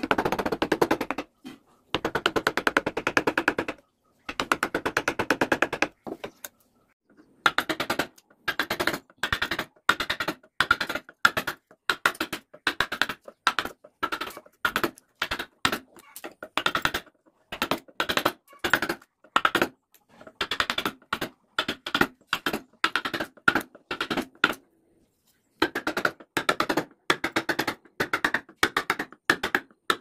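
A carving chisel being driven into a teak board with rapid light taps, in long runs of quick strikes broken by a few short pauses.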